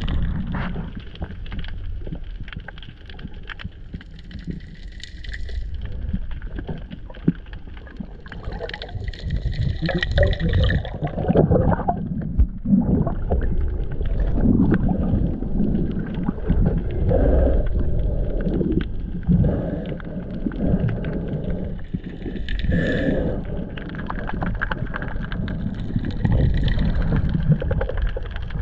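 Muffled underwater rumble and sloshing of moving water, recorded by a camera held underwater, rising and falling in uneven surges with a few brief higher hissing patches.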